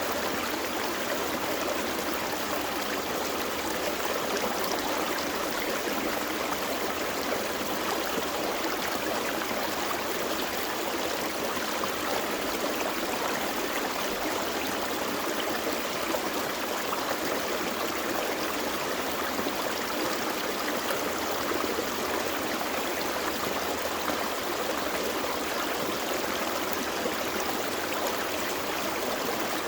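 Gentle forest creek, water running steadily over rocks, a continuous bubbling rush with no breaks.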